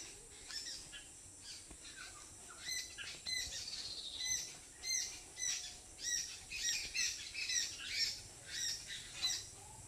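Birds calling: a run of short, high calls repeated every half second or so, sparse at first and frequent from about three seconds in.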